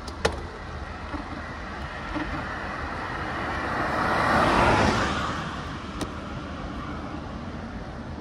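Small pickup truck passing in the oncoming lane: its engine and tyre noise swell to a peak about halfway through, then fade away, over a steady low rumble.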